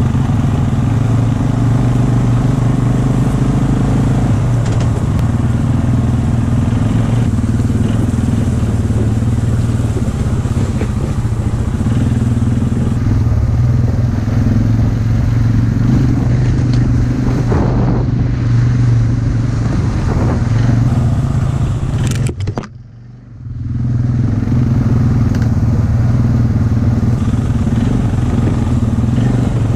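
ATV engine running steadily as the quad is ridden along a dirt trail. The sound cuts out sharply for about a second roughly three-quarters of the way through.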